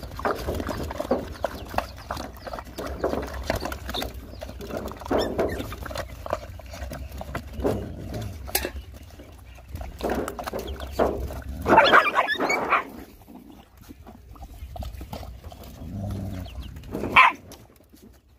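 Dogs and puppies eating from a plastic bucket, with irregular wet lapping, chewing and smacking. About twelve seconds in one dog gives a loud harsh snarl lasting about a second, and there is one short sharp yelp near the end.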